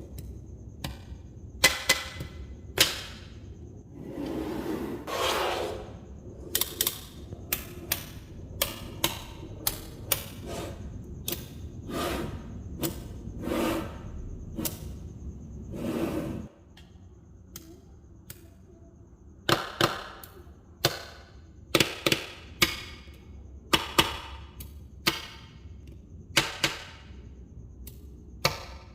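Small magnetic balls clicking and snapping against each other as they are placed, with sharp irregular clicks a few times a second and a few brief sliding, rattling sounds.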